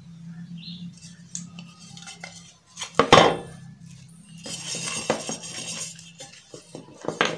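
Iron appe pan set down on the tabletop with one loud clunk about three seconds in, followed by crinkling of plastic wrapping as the mesh scrubber pad is handled.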